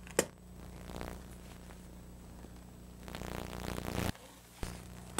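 Steady low hum of the recording, with a sharp click just after the start, a short scraping rustle about three seconds in that cuts off suddenly, and two small clicks near the end.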